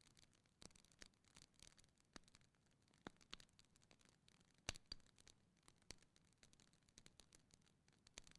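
Wood fire crackling faintly: irregular small snaps and pops, with one sharper pop about halfway through.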